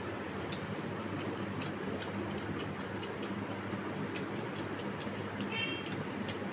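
Close-up eating sounds: irregular sharp clicks from chewing and from fingers mixing rice and curry on a brass plate, over a steady low hum. A brief high squeak near the end.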